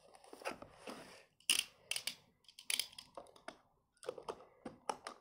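Blunt back of a knife scraping along the seam of a cardboard toy box, splitting the tape seal, in a series of short scratchy, crackling strokes with handling taps on the cardboard.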